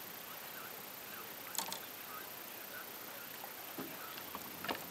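Faint steady hiss with a few small clicks and knocks from fishing gear handled on a kayak, the sharpest about one and a half seconds in and another near the end.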